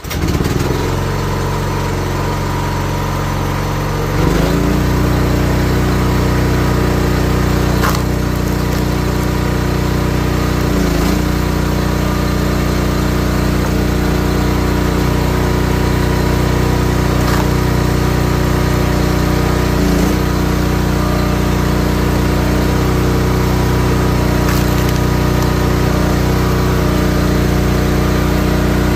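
Small gas engine of a hydraulic log splitter running steadily. It gets louder about four seconds in and sags briefly twice. A few sharp cracks sound over it.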